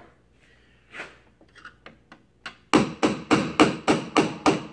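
A hammer tapping a punch to drive the pivot pin into a Minn Kota Rip Tide trolling motor's tilt-latch bracket. A few light clicks come first, then from about three seconds in a quick, even run of sharp taps, about four a second.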